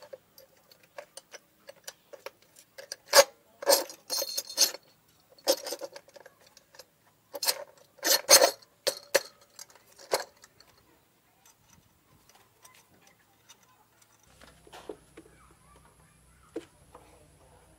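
Metal clicks and clanks of a hand tool and a car alternator knocking against its steel mounting brackets as the alternator is bolted down, coming irregularly and mostly in the first ten seconds.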